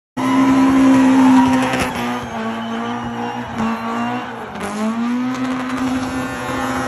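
Rally car engine held at high revs through a tight bend, the pitch dipping briefly about halfway through and then climbing again as it drives out.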